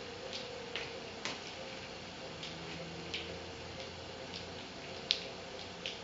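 Nunchaku being swung and caught, giving short sharp clicks and clacks at an uneven pace, about one every half second, with one louder clack about five seconds in.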